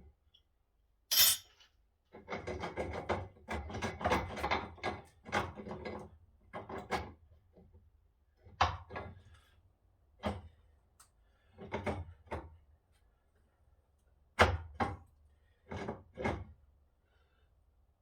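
Knocks and clatter of hand tools against the metal parts of an old power hacksaw being dismantled: a busy stretch of rattling and scraping, then single knocks every second or two.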